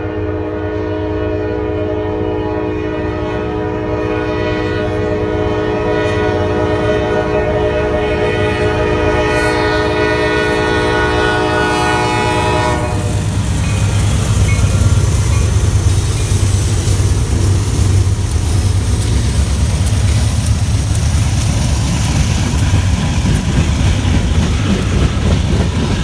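Diesel locomotive horn sounding one long, steady blast that cuts off about halfway through, followed by the loud rumble and rattle of the locomotive and train passing close by.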